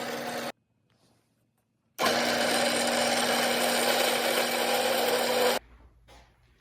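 A power tool runs in a short burst at the start, then runs steadily for about three and a half seconds with an even motor hum and cuts off suddenly.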